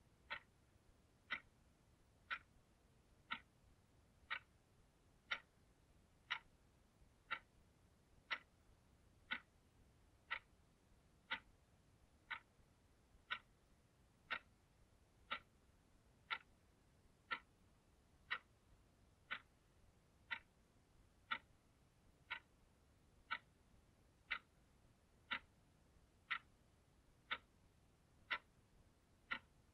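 Blue analog alarm clock ticking steadily, one short, crisp tick each second.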